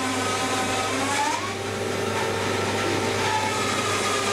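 Steady whirring machine noise with a constant low hum underneath.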